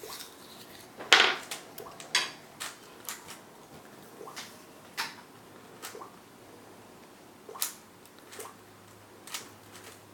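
Plastic clicks and clacks of a Rubik's Cube being twisted by hand, coming irregularly, the loudest about a second in.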